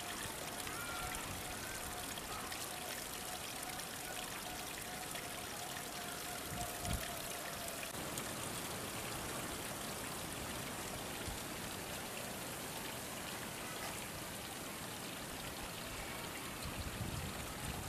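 Steady rush of running water, even and unbroken, with a brief low thump about seven seconds in.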